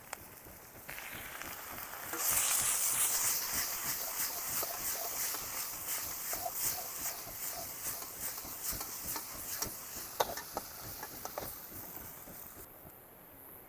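Food sizzling in a hot pan: the hiss flares up sharply a couple of seconds in, then slowly dies down, with small clicks and taps scattered through it.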